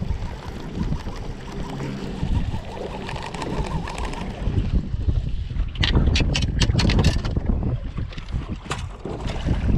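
Wind buffeting the microphone over the low wash of water against a small boat's hull, with a quick run of sharp clicks and knocks about six to seven seconds in.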